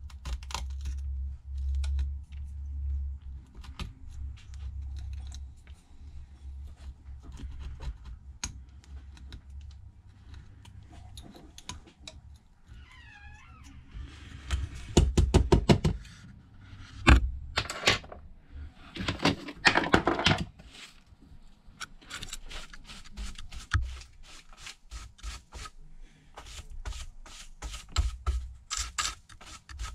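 A hand tool scraping and picking at leftover broken glass on a smartphone's frame: small clicks and taps, with bursts of quick repeated scraping strokes about halfway through, and a brief squeak just before them.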